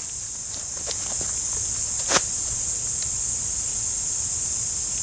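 Steady high-pitched chorus of insects, typical of crickets, with a few faint clicks, the sharpest about two seconds in.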